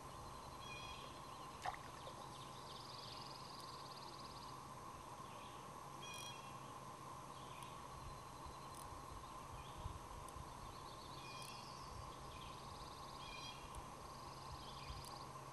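Songbirds singing faintly, with short repeated phrases and fast high trills coming and going, over a steady low hum. A single sharp click about two seconds in.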